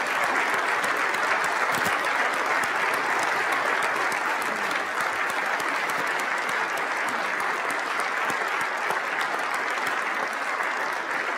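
Standing ovation from a large assembly of legislators: many people clapping at once in steady, sustained applause.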